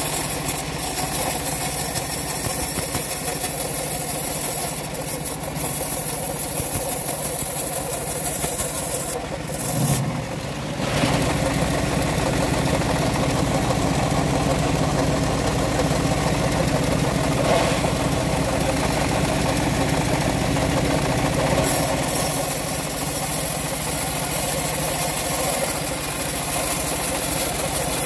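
Engine of a homemade band sawmill running steadily while its band blade saws lengthwise through a log, with a short dip and change in the sound about ten seconds in.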